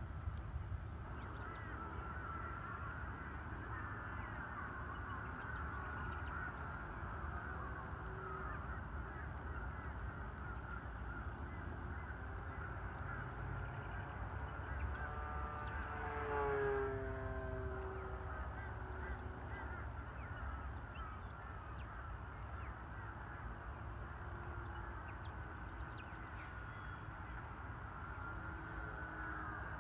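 Whine of the electric motor and three-blade propeller of an E-flite T-28 Trojan RC airplane in flight, wavering over a low rumble. About halfway through it gets louder as the plane passes close, then falls in pitch as it flies away.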